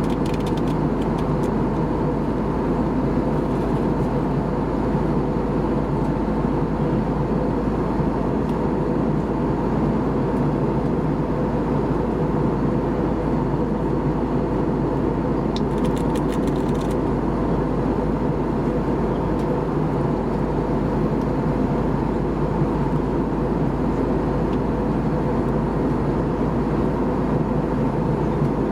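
Steady cabin noise of an Airbus A320 in descent, engines and airflow making an even rushing hum heard from inside the cabin. A few faint clicks come about a second in and again about sixteen seconds in.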